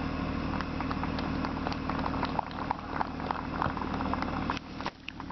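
A steady low hum, with many light clicks and taps scattered over it. The hum drops away briefly near the end.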